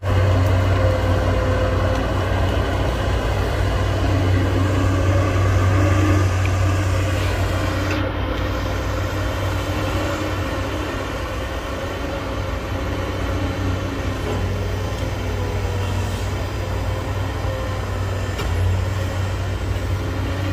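Caterpillar 320D excavator's six-cylinder diesel engine running steadily under digging load, a low drone with no breaks.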